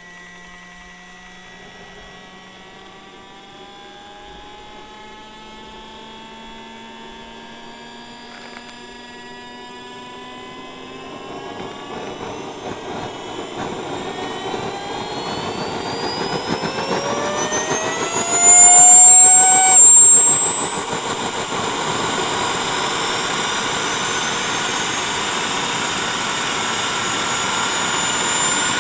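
A JetCat model turbine doing a kerosene start. A whine rises steadily and grows louder as the engine is spun up and accelerates. About 18 seconds in it suddenly gets much louder, and near the end the high whine climbs steeply as the turbine spools toward about 86,000 rpm and stabilises.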